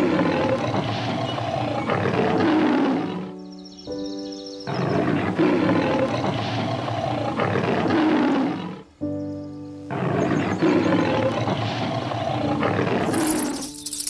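Lion roaring in three long, rough bouts a few seconds each, over background music.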